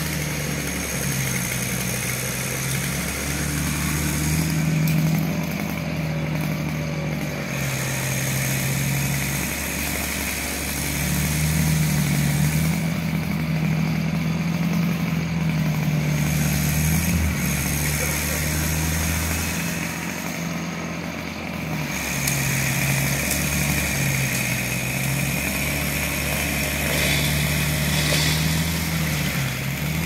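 An engine idling, a steady low hum whose pitch steps up and back down every few seconds.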